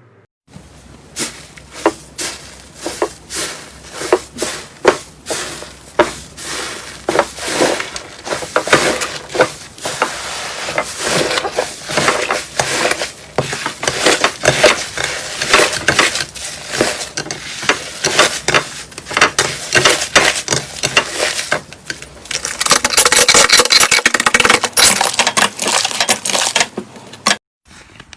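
Slime being pressed and squeezed by hand, making a run of sharp, wet pops and clicks that come faster and faster, turning to dense crackling near the end.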